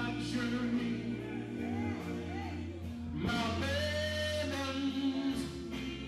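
A male gospel vocal group singing live with electric guitar accompaniment, the voices holding long notes.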